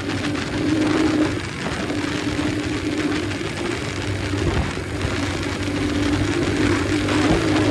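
Motorcycle engine running at a steady cruise, its note dipping slightly now and then with the throttle, with wind rushing over the microphone.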